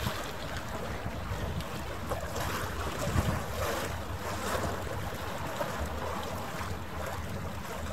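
Wind buffeting the microphone in an irregular low rumble, over a steady wash of harbour water.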